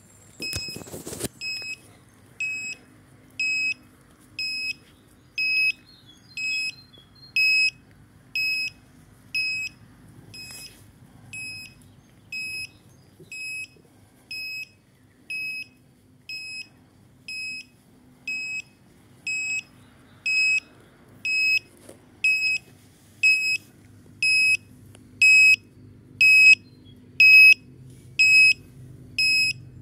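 Electronic warning beeper on a homemade robotic lawnmower sounding a regular series of short, high beeps, about one a second, louder near the end.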